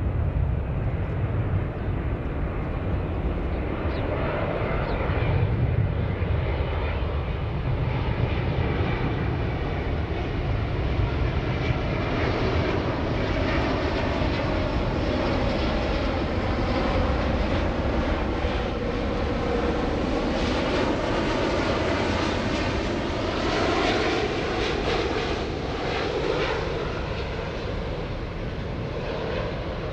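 Airbus A350-900 airliner on final approach with gear down, its Rolls-Royce Trent XWB turbofans running at approach power as it flies low past. A steady jet roar with a whine that drops in pitch as the aircraft passes, easing slightly near the end.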